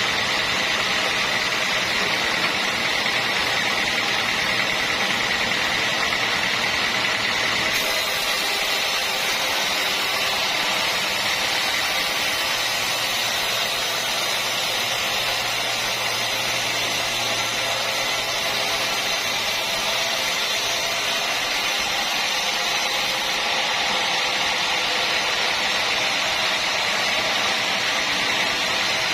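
Sawmill machinery running steadily with a constant whine. From about eight seconds in it turns hissier and brighter, then eases back about six seconds before the end.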